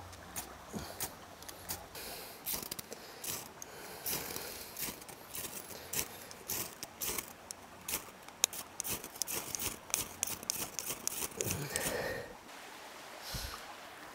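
Ferro rod (fire-starting flint) being struck again and again with a metal striker: quick, sharp, high scrapes, several a second, each throwing sparks onto coconut husk tinder. The strikes stop shortly before the end.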